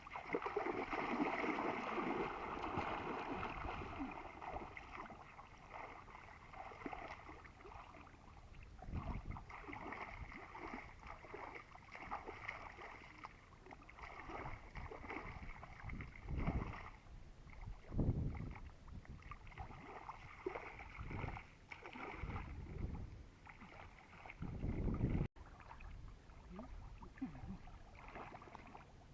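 Water sloshing and splashing as someone works by hand in shallow water, with several heavier splashes or thumps spread through it.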